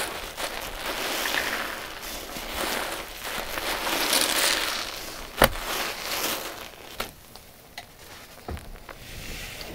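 Wet sponges full of a paste-and-powder mixture being squeezed by hand: swelling waves of squelching and foamy crackle, with a sharp tap about five and a half seconds in. It is quieter in the last few seconds, with only a few small clicks.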